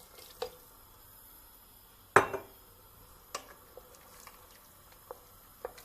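Cookware handled: a sharp metallic clank about two seconds in that rings briefly, with a few lighter knocks and clinks around it.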